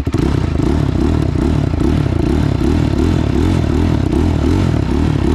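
Honda TRX450R quad's single-cylinder four-stroke engine running under throttle as it is ridden, its note wavering up and down. It picks up from slower, separate firing pulses right at the start.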